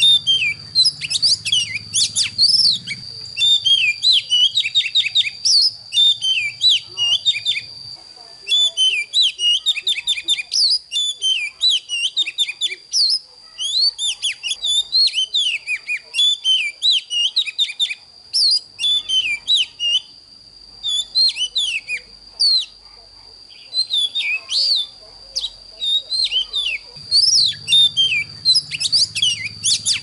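Oriental magpie-robin singing a fast, varied run of whistled and chirped phrases, thinning to a short lull about two-thirds of the way through. A steady high whine runs underneath, and a low hum sounds for the first several seconds and again near the end.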